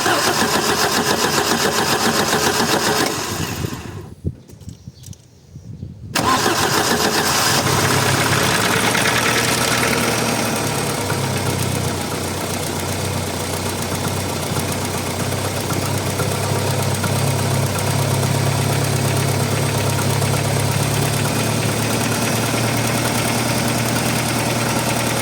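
Audi 80 B4's 2-litre engine cold-started: it runs briefly and dies away about three seconds in, then catches again about six seconds in and settles to a steady idle after a few seconds of faster running. This time it starts quietly, without the heavy clatter the owner suspects comes from the hydraulic lifters.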